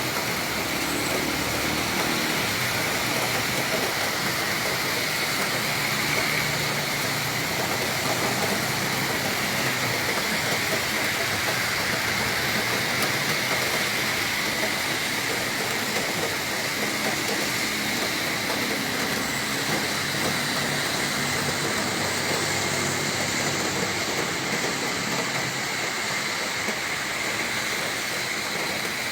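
Heavy rain falling steadily with strong wind, a continuous even hiss, with a faint low hum underneath.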